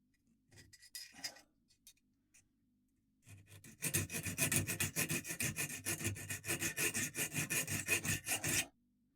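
Hand file rasping across a steel kebab-skewer wire clamped in a vise, in quick back-and-forth strokes for about five seconds, filing a flat side onto a lever-lock pick. A few light handling clicks come first.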